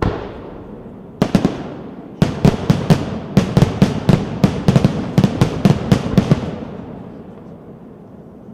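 Firework display bursts: a bang, another about a second later, then a rapid string of about twenty sharp bangs over some four seconds, with a rumbling echo that fades out near the end.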